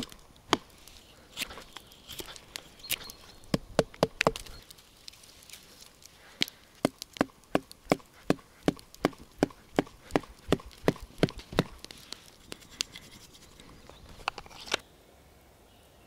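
A knife cutting into a green wooden stick, making sharp wooden clicks. At first they are irregular, then they settle into a steady run of about three strokes a second, and they stop suddenly near the end.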